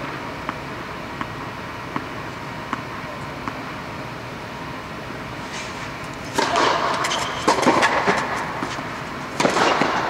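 A tennis ball bounced on a clay court at an even pace, about every 0.7 seconds, before a serve, over a steady background hum. From about six seconds in come louder racket hits on the ball and shoes scraping on the clay as the point is played.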